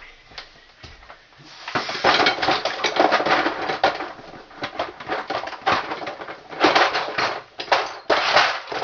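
Rummaging through loose wire nuts and other small hardware: a dense clattering and rattling of small hard pieces knocking together, starting about a second and a half in and coming in several bursts.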